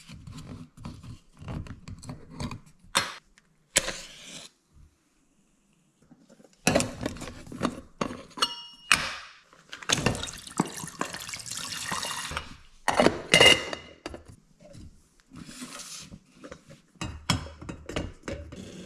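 Metal camping cookware from a Trangia cook set clinking and knocking as it is handled, with one short ringing clink and a stretch that sounds like water being poured.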